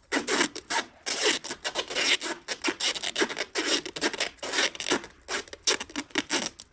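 Clear adhesive tape being pulled off the roll in quick, repeated rasping rips and wound around the joint between a plastic pipe and a tractor's exhaust pipe to seal it against leaks.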